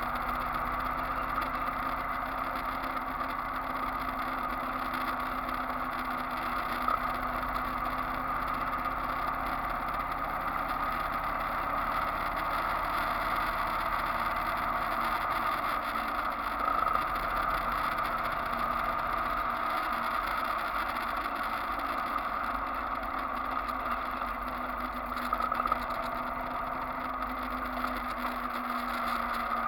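Motorcycle engine running steadily at cruising speed, with wind and road noise on the bike-mounted camera's microphone.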